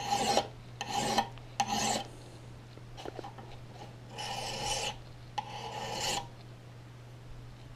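Steel hand file drawn across the edge of a hatchet head clamped in a vise, filing the bit: five strokes, three in quick succession, then a short pause, then two slower, longer strokes.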